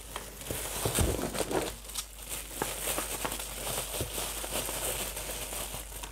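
Plastic packaging crinkling and rustling in irregular crackles as a parcel is unwrapped by hand.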